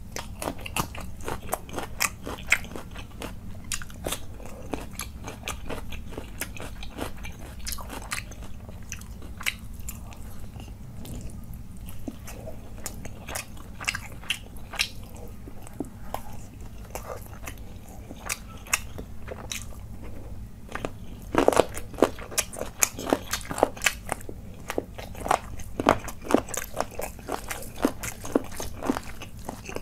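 Close-up eating sounds of chicken leg curry with rice: a man chewing and biting with wet, crunchy clicks of the mouth, growing louder and sharper from about twenty seconds in.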